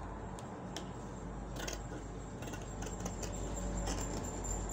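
Scissors cutting through printed fabric in a few separate snips, over a low steady hum.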